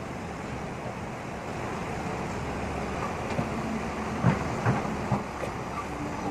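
Diesel engine of a Caterpillar hydraulic excavator running steadily as it dumps a bucket load and swings its arm back. About four to five seconds in come three or four sharp knocks.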